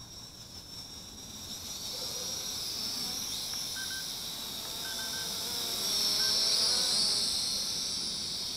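Mould King 33043 Super F micro quadcopter's motors and propellers whining in flight, the pitch wavering as the throttle changes. It grows louder as the drone comes closer and is loudest about six to seven seconds in.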